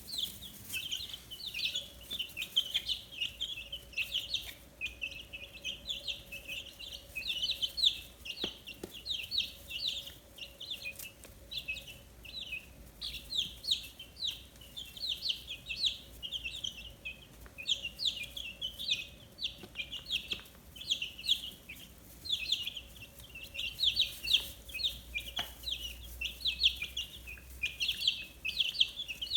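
A brood of fifteen-day-old chicks peeping nonstop, a dense chorus of short, high chirps overlapping from many birds at once.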